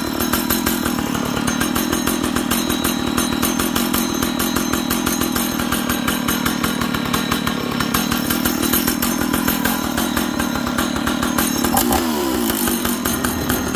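An old Stihl 056 Magnum II two-stroke chainsaw engine running steadily. About twelve seconds in it slows, falling in pitch as it winds down.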